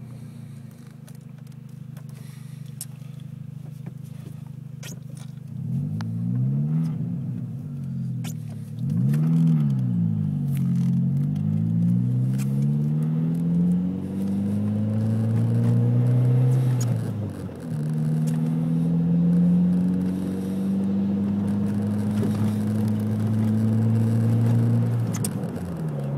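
2003 Volkswagen GTI's 1.8-litre turbocharged four-cylinder engine idling, then blipped up and down several times. It is held at raised revs for several seconds and drops back to idle near the end.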